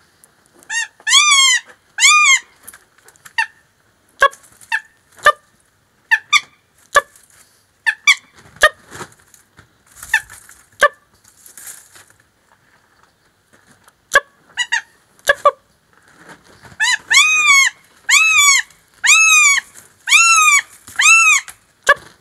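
Finnish northern goshawk calling: loud, shrill cries, each rising and then falling in pitch, in bursts, some short and sharp, with a run of about six drawn-out cries in quick succession near the end. The calling is that of a goshawk coming into breeding condition.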